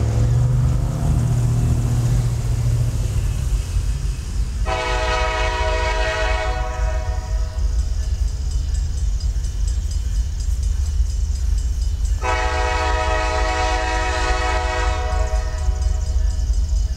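An approaching Norfolk Southern freight's lead diesel locomotive sounds its multi-chime air horn in two long blasts, the first about 2 seconds and the second about 3 seconds, several seconds apart. The locomotive's low diesel rumble runs under them, heaviest at the start.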